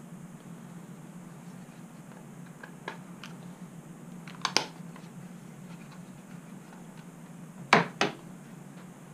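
Plastic pistol-grip RC transmitter being handled, with a few light clicks and a sharp double click about halfway through, then set down on the bench with two knocks near the end, over a low steady hum.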